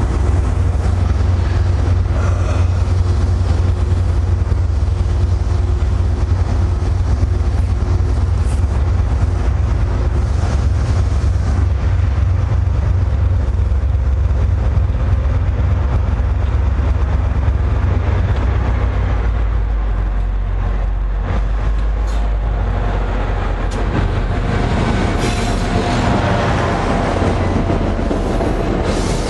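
Train running close by: a heavy, deep rumble that eases about two-thirds of the way through, then a rattle of rail cars building near the end.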